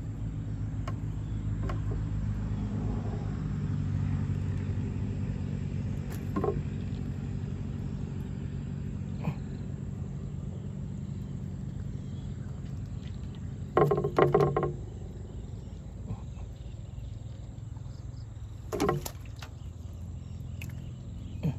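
A motor or engine hums steadily with a low, even drone, swelling a little around four seconds in. A few short sharp sounds cut over it, the loudest about two-thirds of the way through.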